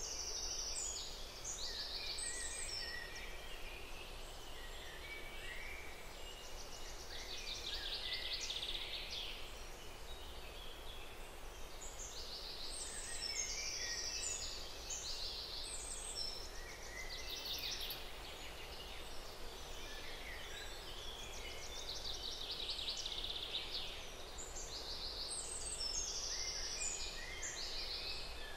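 Birds singing in bursts of rapid chirping phrases every few seconds, over a steady background hiss of outdoor ambience.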